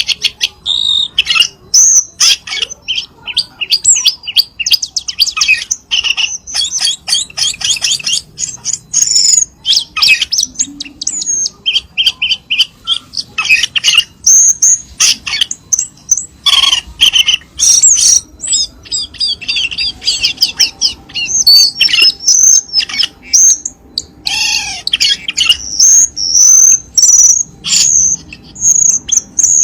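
Cucak keling singing: a busy, almost unbroken run of high, rapid chirps, whistles and trilled phrases with only short pauses.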